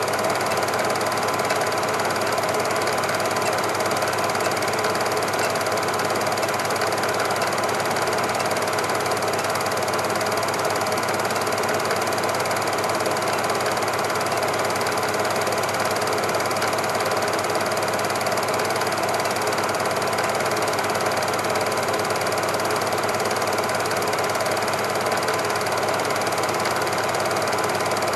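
Cine film projector running steadily: an even motor whirr with a light mechanical clatter that does not change.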